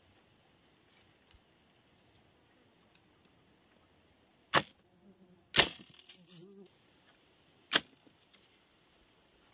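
Three sharp knocks of bamboo being worked into a bamboo mousetrap, about halfway through, a second later, and again two seconds after that; the second knock is the loudest.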